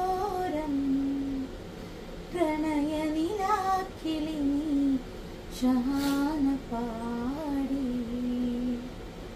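A woman singing a song alone, in three phrases of long, wavering held notes with short pauses for breath between them.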